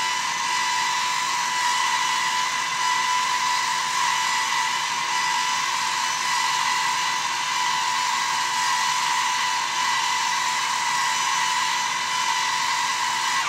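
Erie 2401 water softener control valve's drive running, moving its internal components into the third regeneration cycle: a steady whirring whine that cuts off suddenly at the end.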